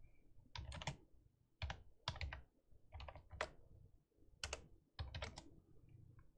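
Computer keyboard typing: several short bursts of key clicks with brief pauses between them, as short shell commands are typed and entered.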